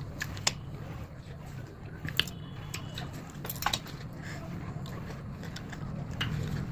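Person biting and chewing fruit: scattered short, crisp crunches and mouth clicks over a low steady hum.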